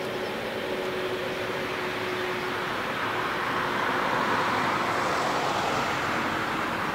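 Boeing 777-300ER's GE90 turbofan engines at taxi power, a steady jet rush. A thin steady tone fades out about halfway, and the rush swells a little after the middle.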